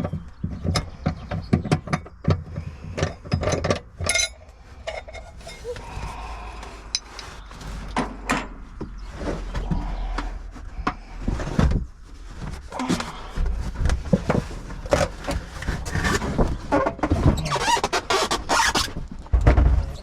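Irregular clicks, knocks and clatter of hand tools and car parts being worked on, with a few squeaks.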